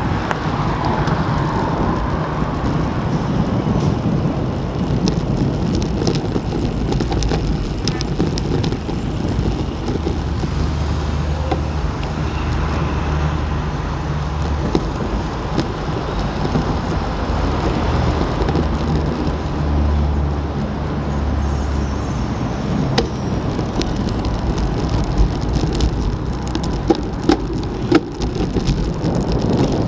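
Steady rush of wind and road noise on a handlebar-mounted action camera riding on a moving bicycle, with motor traffic on the road around it. A low steady hum runs through the middle stretch, and a few sharp clicks come near the end.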